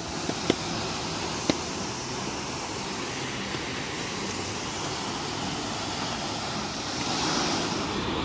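Waterfall rushing: a steady hiss of falling water that grows louder near the end. Two sharp clicks come about half a second and a second and a half in.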